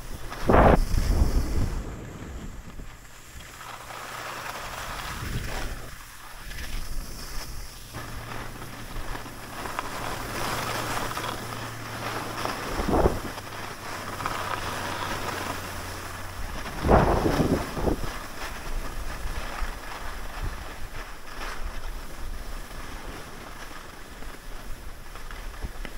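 Wind rushing over the camera microphone while skiing downhill, with the steady hiss of skis sliding on packed snow. Loud wind buffets hit about a second in, near the middle and again a few seconds later.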